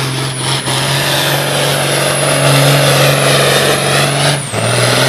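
John Deere farm tractor's engine running hard at steady high revs, pulling a weight-transfer sled, with a thin high whine over the engine note. The engine note drops briefly about four and a half seconds in and then comes back.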